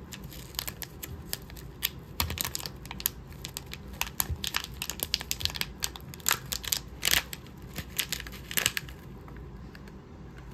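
Crinkly packaging being handled and opened by hand: a dense run of irregular crackles and rustles that dies down about nine seconds in.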